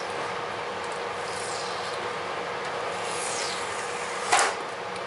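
Handwork at the edge of an aluminium skin: faint sliding scrapes, then one short, louder rasp a little over four seconds in, over a steady hiss and hum of shop noise.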